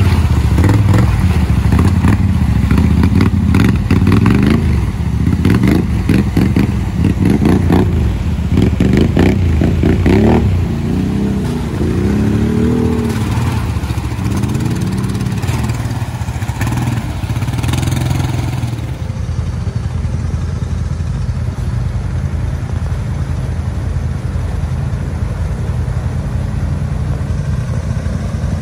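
ATV engines running through a shallow rocky creek, with clattering and splashing as the wheels churn through water and over stones during the first half. Around the middle the engine revs up and down a few times, then settles to a steadier, quieter run.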